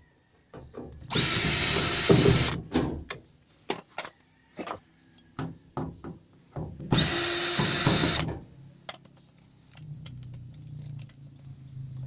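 Cordless drill-driver running in two bursts of about a second and a half each, a steady high motor whine, backing screws out of a washing machine's sheet-metal back cover. Short clicks and knocks come between the bursts.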